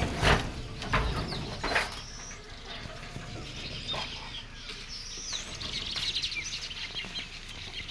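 Birds chirping: many short, high, falling calls, thickest in the second half. A few sharp knocks sound in the first two seconds.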